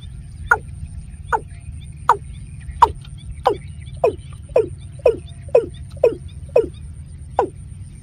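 Watercock calling: about a dozen short, hollow notes, each dropping in pitch, repeated roughly every half second, over a steady low hum.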